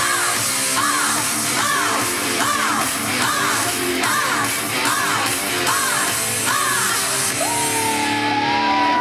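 A woman singing live into a microphone over loud music, with a run of short rising-and-falling vocal phrases coming about one and a half times a second. Near the end she slides up into a long held note.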